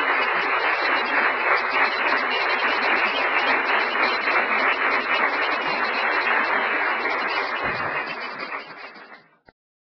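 Audience and people on stage applauding, a dense steady clapping that fades over the last seconds and cuts off abruptly about nine and a half seconds in.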